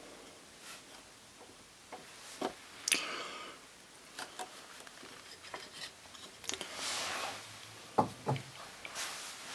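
Handling noises: scattered light knocks and clicks, a brief stretch of rubbing, and two firmer knocks near the end.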